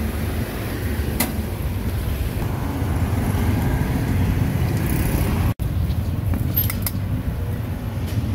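Steady low rumble of street traffic, with motorbikes passing, and a few light clicks; the sound cuts out for an instant about two-thirds of the way through.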